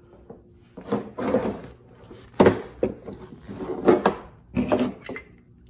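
Several short scrapes and knocks, about six, of a person shifting about and moving things by hand.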